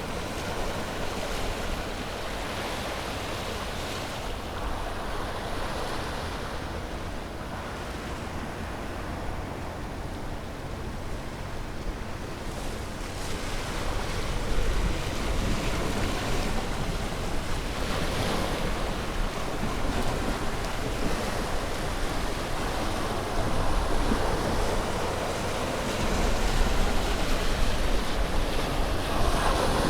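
Sea waves breaking and washing on a shore, a continuous surf rush that swells and eases, growing louder in the second half, with a low rumble of wind on the microphone.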